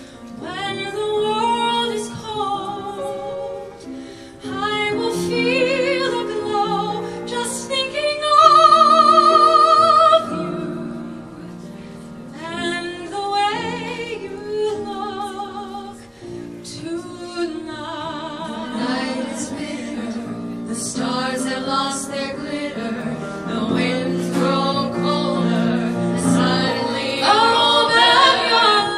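A woman singing a torch song with vibrato into a microphone, accompanied by piano chords. She holds a long high note with vibrato about eight seconds in, the loudest moment, and backing voices join near the end.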